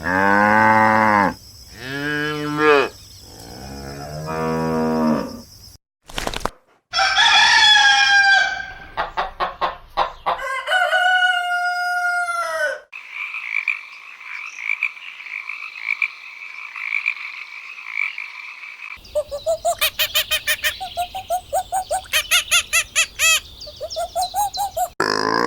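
A run of farm-animal calls cut one after another: three drawn-out moos, then a rooster crowing, then chickens clucking and chirping, ending in rapid repeated short calls.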